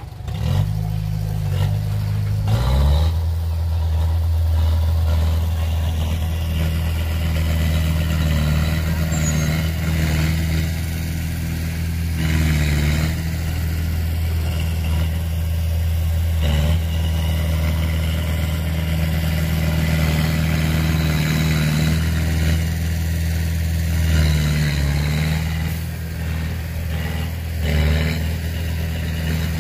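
Small dump truck's diesel engine running steadily at raised speed, driving the hydraulic hoist as the loaded bed tips up. The engine note steps up about two and a half seconds in and then holds.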